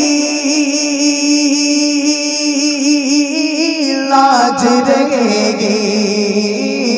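A man singing a long, drawn-out wordless note with wavering ornaments in naat recitation, amplified through a microphone. The melody moves to new notes about four seconds in.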